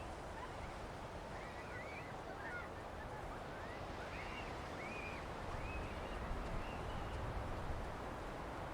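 A bird giving a run of about half a dozen short calls, each bending up and down in pitch, over the steady wash of sea and wind on a beach.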